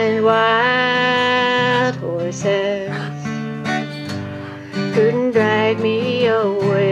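A woman singing long, held notes while strumming an acoustic guitar.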